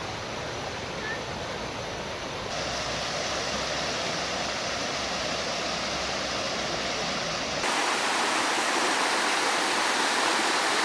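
Flowing river water rushing over rocks: a steady, even rush that jumps abruptly louder about two and a half seconds in and again near eight seconds.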